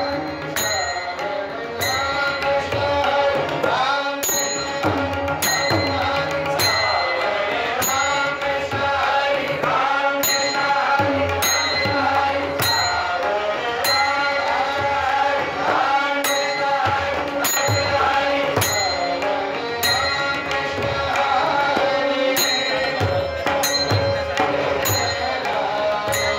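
Marathi bhajan music with tabla and a melody, keeping a steady beat.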